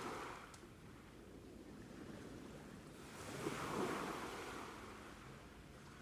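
Sea waves washing in, in soft swells that rise and fall: a small one right at the start and a louder one about three and a half seconds in.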